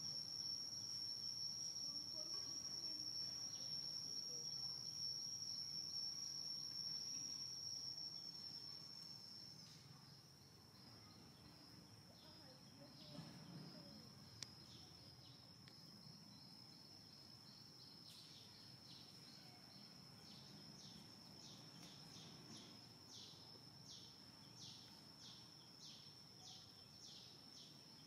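Steady high-pitched insect trill, louder for the first eight seconds or so and then softer. In the second half a run of short chirps comes in at about two a second.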